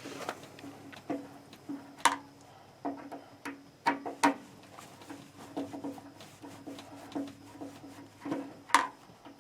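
Irregular metallic clicks and taps of a hand tool loosening screws on an electric water heater, with a few sharper clacks; many are followed by a short low ring from the metal.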